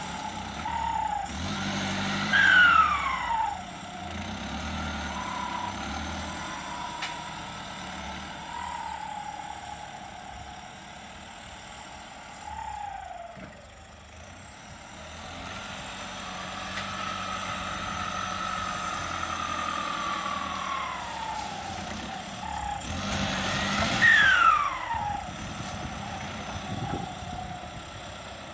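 Kubota L5018SP diesel tractor engine running under load while it works in loose soil, its revs rising and falling. Twice, about two seconds in and near the end, it revs hard and the pitch drops away sharply.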